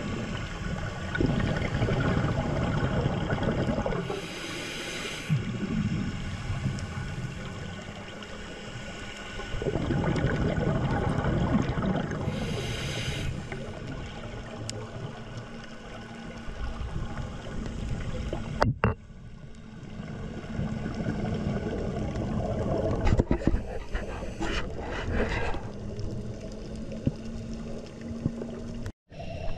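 Underwater scuba breathing through a regulator: bursts of exhaled bubbles rumbling and gurgling, each followed by a short hiss of inhalation, the cycle repeating.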